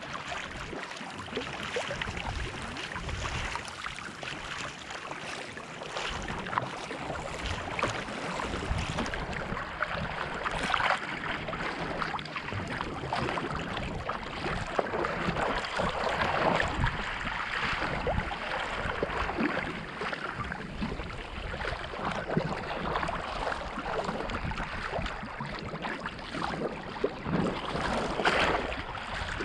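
Sea kayak paddling through a light chop: water splashing off double-bladed paddle strokes and washing along the hull, with wind on the microphone.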